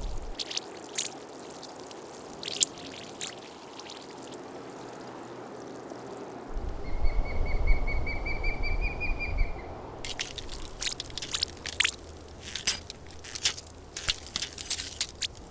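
Sound-designed water effects: pouring and trickling water with scattered sharp drip-like clicks. About a third of the way in, a low rumble comes in with a thin high tone that rises slightly for about three seconds. Then come dense runs of clicks and drips.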